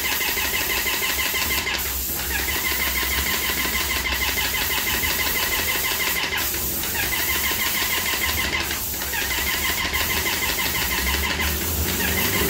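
Electric airless paint sprayer running under load, its pump motor going with a fast, even mechanical rhythm and the spray tip hissing as paint goes onto a wall. The sound dips briefly a few times.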